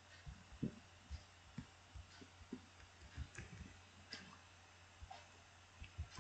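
Faint, irregular clicks of a computer mouse as the code is scrolled, about two or three a second, over a faint steady low hum.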